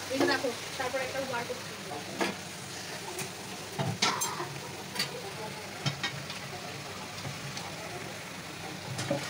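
Meat and potatoes frying in spices in a metal kadai on a gas burner, a steady sizzle. A metal spatula stirs and knocks against the pan several times.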